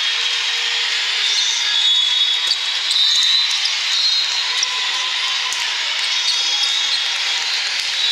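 Steady din of a large sports hall with several volleyball games going at once, with short shoe squeaks on the court and the odd sharp ball hit standing out.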